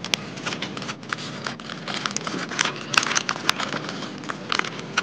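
A sheet of paper rustling and crinkling as it is rolled tightly around a metal rod into a tube, with irregular small crackles and scrapes.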